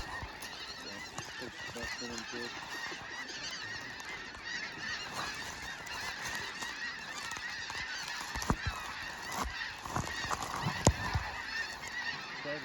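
A large flock of snow geese calling: a dense, unbroken chorus of many overlapping high honks and yelps. A few sharp knocks sound in the second half.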